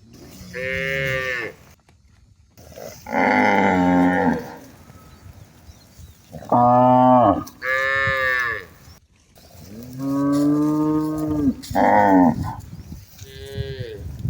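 Cattle mooing, one call after another: about seven moos, each lasting around a second.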